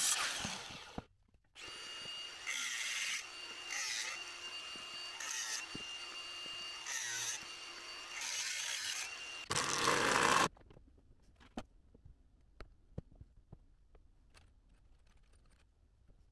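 A handheld power saw cuts through timber. After a short break, a power tool runs with a steady high whine that swells about every second and a half as it bites, and a second loud cut comes about ten seconds in. The last few seconds hold only faint knocks.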